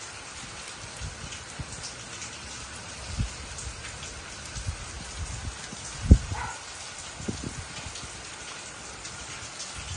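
Steady rain falling on roofs and pavement, an even hiss, with low bumps of wind on the microphone; the strongest bump comes about six seconds in.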